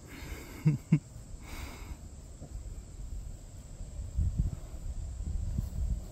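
Outdoor ambience with a steady high insect drone, typical of crickets. Two sharp thumps come just under a second in, a brief hiss follows, and a low rumble rises in the second half.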